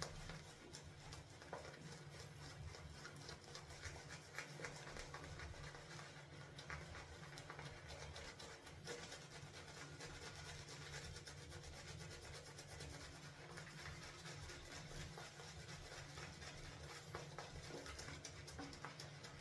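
Semogue 830 boar-bristle shaving brush working shaving soap into lather: a soft, continuous wet rubbing with fine ticks as the bristles swirl through the thickening lather.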